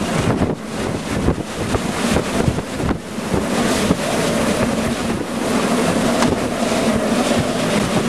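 Strong storm wind rushing and buffeting the microphone from a vehicle close to a large tornado, in uneven gusts, with a low steady rumble from the moving vehicle underneath.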